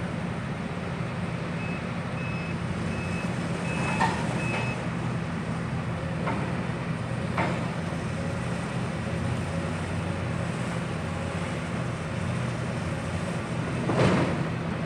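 Heavy machinery's diesel engine running steadily. A reversing alarm beeps about five times starting about two seconds in, and a few sharp knocks come through, the loudest near the end.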